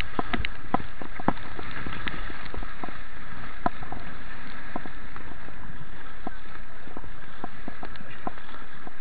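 Rushing white water of a grade 1 river rapid, a steady noise with many irregular sharp ticks and splashes, heard through a helmet-mounted action camera.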